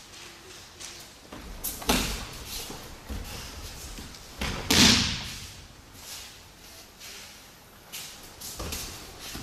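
Aikido throws ending in breakfalls: a body slaps and thuds down onto tatami mats, once about two seconds in and hardest about five seconds in, with lighter thumps near the end.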